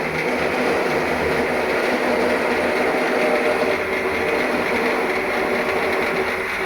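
Beltech H100-LEG rubber-roll rice husker running steadily: an electric motor hum under a denser, grainy whirr that swells just after the start and eases again near the end.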